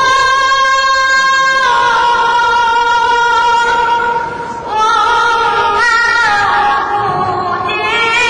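Children's choir singing long held notes, with a short break about four and a half seconds in.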